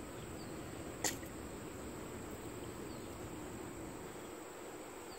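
Steady hum of honey bees crawling over an open hive frame held close, with a single brief click about a second in.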